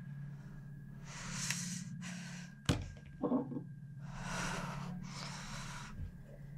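A woman's heavy, gasping breaths in two pairs, with a single sharp knock about halfway through as something is set down on the table, over a steady low hum.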